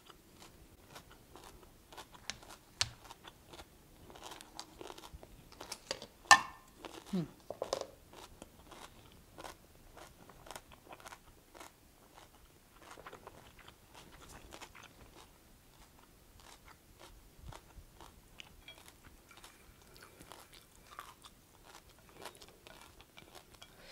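A person chewing a mouthful of crunchy kohlrabi-noodle stir-fry with carrots and ham, close to the microphone: steady crunching and small mouth clicks, with one sharper click about six seconds in.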